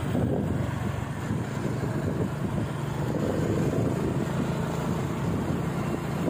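An engine running steadily, a continuous low rumble with no change in pitch.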